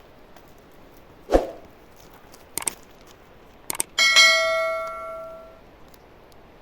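A metal object struck once, ringing with a clear bell-like tone that fades over about a second and a half. Before it come a dull knock and a few sharp clicks.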